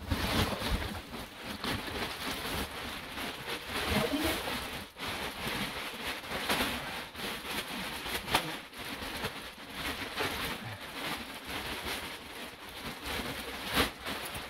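Plastic wrapping crinkling and rustling as it is pulled and peeled off a hybrid mattress, with a few sharper crackles along the way.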